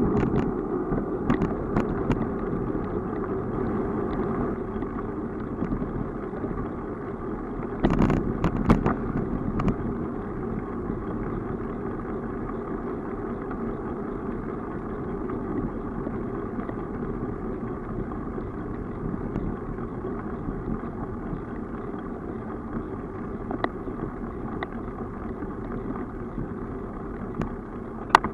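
Steady rolling and wind noise of a bicycle riding on an asphalt street, heard through a bike-mounted camera, with a short cluster of sharp rattles about eight seconds in and a few more near the end.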